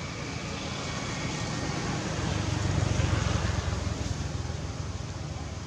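A motor vehicle passing by: a low rumble with hiss that swells to its loudest about three seconds in and then fades away.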